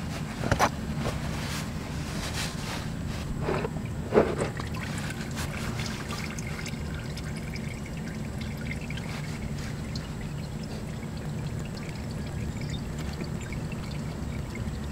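Old engine oil draining in a steady stream from the oil pan drain hole of a 2015 Subaru WRX's FA20 engine into a plastic catch pan. A couple of brief knocks come about half a second and four seconds in.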